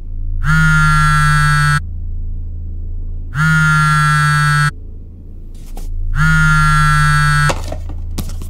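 Smartphone buzzing with an incoming call, three pulses of about a second and a half each, roughly three seconds apart, over a low music drone.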